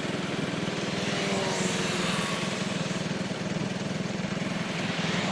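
A small engine running steadily at an even, low speed, over a steady hiss.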